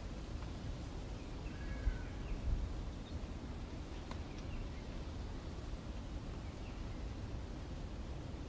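Outdoor ambience: a steady low rumble, with a few faint bird chirps about two seconds in.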